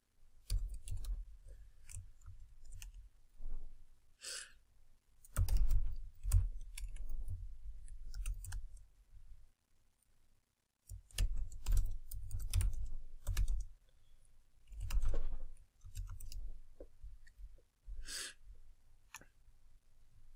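Typing on a computer keyboard: irregular key clicks in two long runs, with a pause of about a second in the middle.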